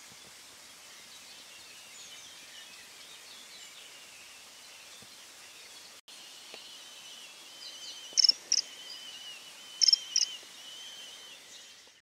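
Common kingfisher giving short, high-pitched calls: two pairs of calls about a second and a half apart in the second half, over faint background birdsong.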